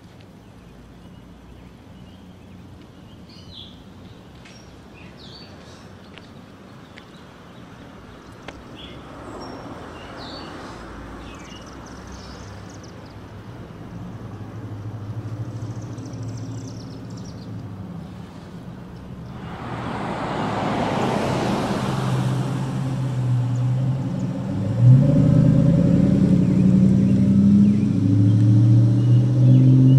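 Street traffic: cars pass by one after another, with small birds chirping in the first half. In the last few seconds a heavier engine runs loudly and revs up, the loudest sound here.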